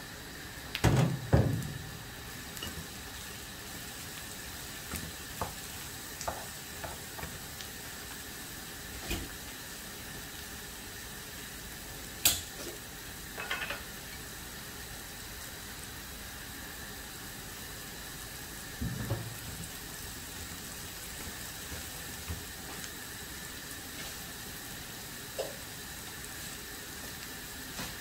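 Diced zucchini and onion frying in a nonstick pan with a steady sizzle, and a wooden spatula knocking and scraping against the pan a few times as the vegetables are stirred, loudest about a second in.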